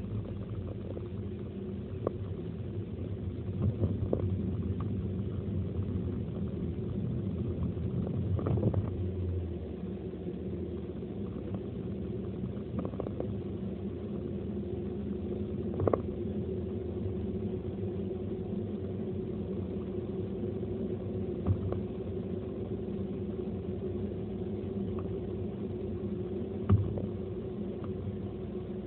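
Car driving at highway speed, heard from inside the cabin: a steady engine and road drone, rougher for the first nine seconds or so, then smoother. A few short knocks stand out above the drone.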